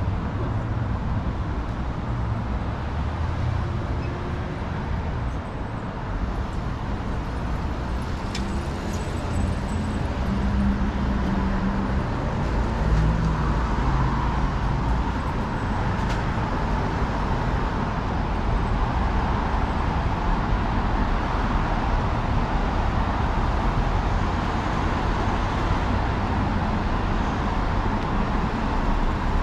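City road traffic: cars passing, a steady rumble of engines and tyres.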